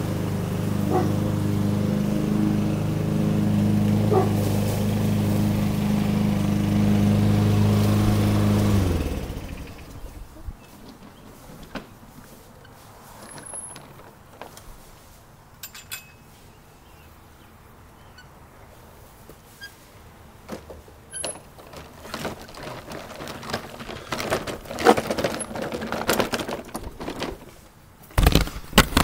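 Small gasoline lawn mower engine running steadily, then shut off about a third of the way in, dying away within a second. After that only scattered faint clicks and a few short high chirps, with knocks and rustles near the end.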